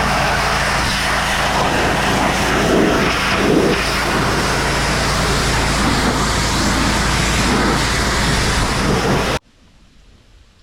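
An engine running steadily with a loud hiss over it. It cuts off abruptly about nine seconds in, leaving a quiet background.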